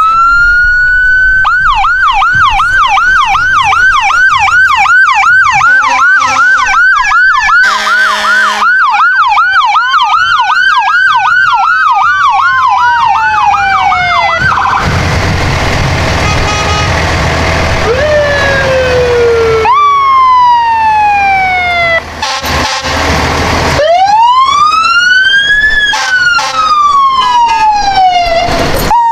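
Electronic emergency-vehicle sirens on parade vehicles passing, among them a sheriff's truck. A fast yelp runs with a slower wail over it for the first half. A burst of rushing noise follows about halfway, then slow wail sweeps rise and fall.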